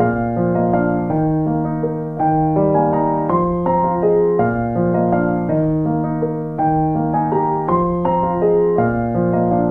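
Background piano music: a calm, even pattern of sustained notes over a bass line, with new notes struck about once a second.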